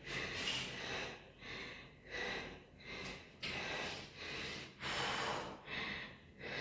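A woman panting hard after climbing many flights of stairs, about one heavy breath a second.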